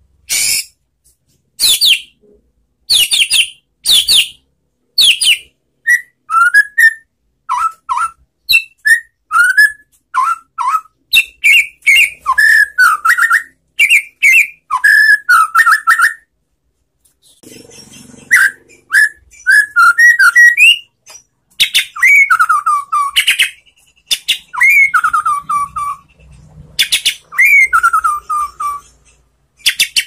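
White-rumped shama singing a relaxed song: quick varied whistled phrases, sharp high notes and falling slurs, with a short pause a little past halfway.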